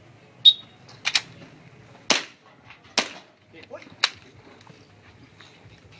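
A shot timer's short start beep, then a BB gun firing several sharp shots about a second apart as the shooter engages the targets of an IPSC-style stage.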